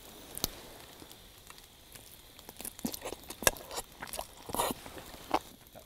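Close-up eating sounds: a metal fork and tongs clicking against a stainless steel cup, with slurping and chewing of cooked mushrooms. Irregular sharp clicks and a few short slurps, over a faint steady hiss.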